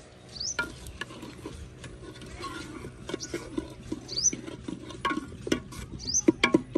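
Short rising bird chirps repeat every second or so over irregular clicks and knocks of things being handled, with a quick run of sharper knocks near the end.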